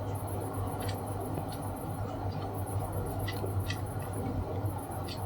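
Scattered light clicks and taps from small-tool bench work during soldering, over a steady low hum.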